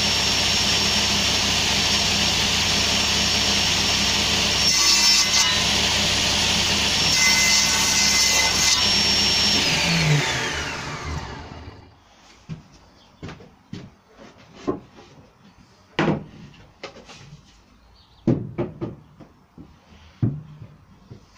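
Table saw running at speed with a steady high blade whine while shelf ends are crosscut on its sliding table; about ten seconds in it is switched off and the blade winds down in a falling whine. After that, a scattering of wooden knocks and clunks as boards are handled.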